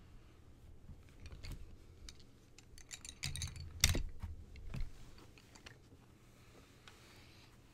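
Wooden coloured pencils clicking and rattling against each other as a cloth pencil roll full of them is rolled up, with a quick flurry of clicks and one sharp knock about four seconds in, then dying away.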